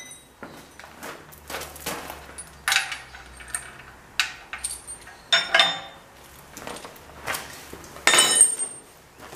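Loose steel hand tools clinking and clanking against a steel carrier platform as they are picked up: a string of sharp metallic knocks with a ringing tail, the loudest about eight seconds in, with footsteps on gravel.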